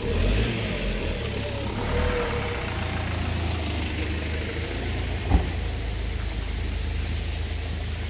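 Minibus engine idling with a steady low rumble, and a single sharp knock about five seconds in.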